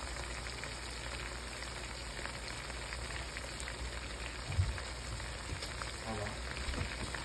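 Seafood and sauce frying in a wok: a steady sizzle flecked with small crackles and pops. A single soft knock comes a little past halfway.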